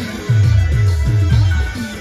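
Live Timli band music: a heavy beat of deep bass drum hits that drop in pitch, about four a second, under a keyboard melody. The beat pauses briefly at the start and again near the end.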